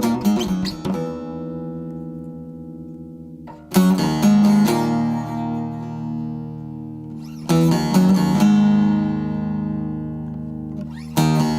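Background music: a chord struck about every four seconds, each left to ring and fade before the next.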